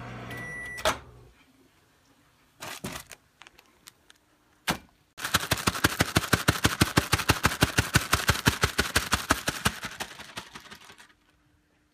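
Microwave oven humming and beeping, then its door clicking open about a second in. From about five seconds in comes a long run of rapid, even clicks, about ten a second for some six seconds.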